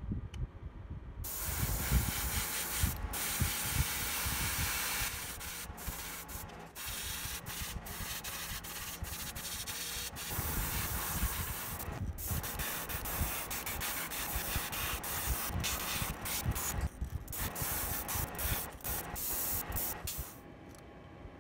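Airbrush spraying paint, a steady hiss broken by many short gaps as the trigger is let off and pressed again. It starts about a second in and stops near the end.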